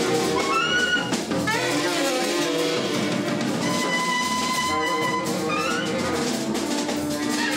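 A small jazz group playing live: horns with held notes and several quick rising runs over a busy drum kit and cymbals.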